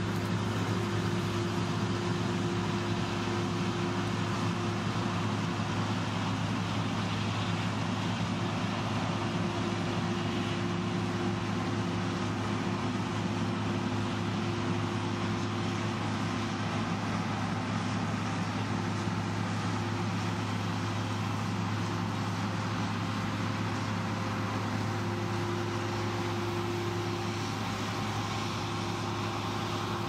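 John Deere combine harvester running steadily while harvesting: a constant low engine hum with a fainter higher tone over it, under an even mechanical rushing noise.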